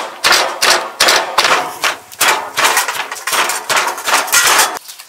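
Wooden pestle pounding chillies and herbs in a wooden mortar, a steady rhythm of about two strokes a second, stopping shortly before the end.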